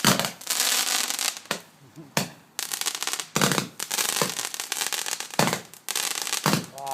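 Fireworks going off in a run of crackling, hissing bursts, one after another with short gaps between.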